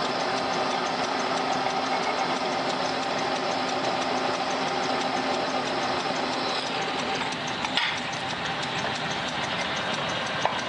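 Drill press running with a steady hum while a twist drill bores through an aluminium indexing plate. A higher hiss in the sound stops about two-thirds of the way through, and a sharp click follows about eight seconds in.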